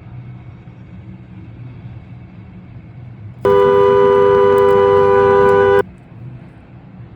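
Ford Crown Victoria's dual-note car horn blaring steadily for a little over two seconds, starting about three and a half seconds in, over a low steady hum. The horn is stuck on after a steering wheel swap, which the owner puts down to pinched wires or the airbag pressed in wrong.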